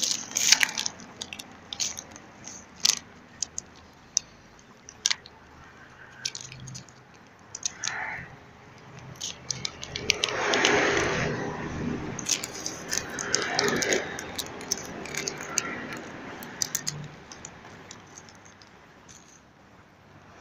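Handling noise close to the microphone: scattered clicks and light knocks, with a longer rustling rub about halfway through as the camera is picked up and set down again.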